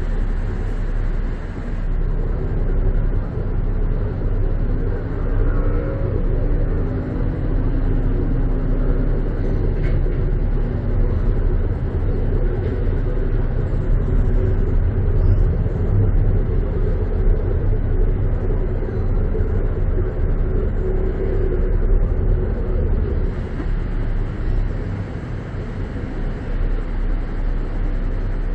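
Steady low engine rumble, with a fainter hum that wavers slightly in pitch through the middle.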